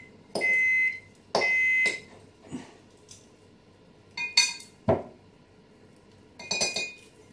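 Microwave oven beeping twice, each beep about half a second long, signalling the end of its heating cycle. Then a few sharp clinks of a knife and butter against a glass measuring jug.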